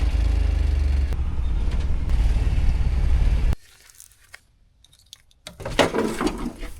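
Chevrolet Astro van's engine running while the van is moved, heard as a steady low rumble from inside the cab, then switched off, cutting out suddenly about three and a half seconds in. A few faint clicks follow, then a short spell of clattering and rustling near the end.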